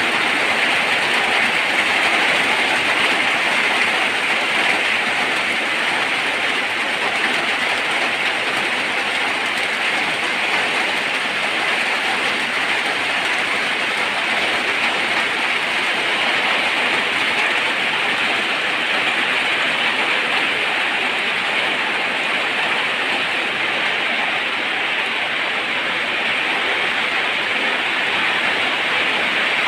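Steady rainfall, a dense even hiss with no separate drops or changes standing out.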